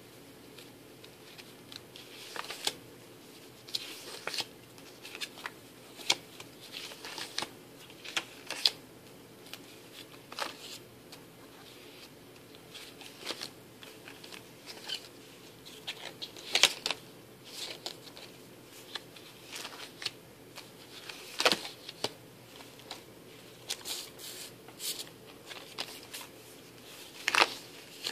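Paper and cardstock pages of a disc-bound scrapbook being handled and turned: irregular rustling and crinkling with short clicks, a few sharper ones in the second half.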